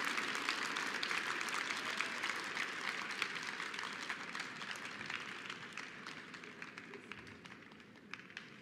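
Applause from a small, scattered audience, individual hand claps standing out, dying away gradually over several seconds.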